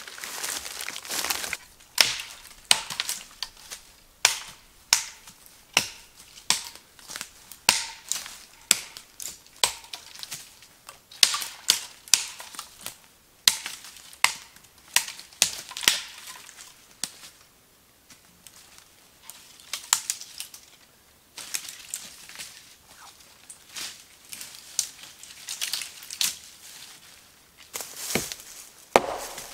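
Footsteps crunching through dry fallen leaves and brush, with sharp cracks of twigs snapping underfoot, in an irregular run of one or two steps a second that pauses briefly partway through.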